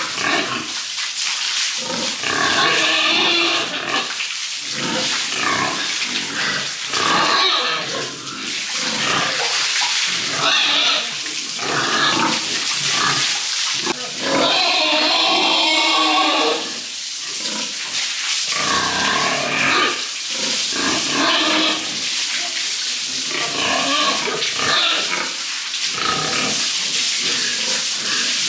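Pigs squealing and grunting in a string of repeated calls, the longest squeal lasting about two seconds around the middle.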